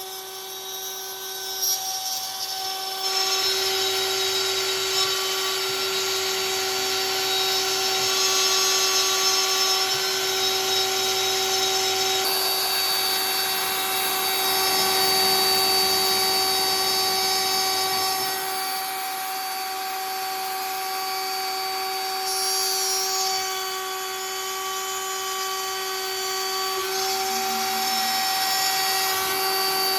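CNC router spindle whining at a steady pitch while its bit mills wood, with the cutting noise picking up about three seconds in.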